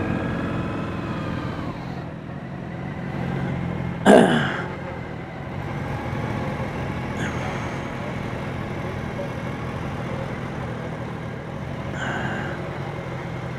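BMW touring motorcycle engine running steadily at low speed, heard from a camera mounted on the bike. About four seconds in there is one short, loud voice-like sound.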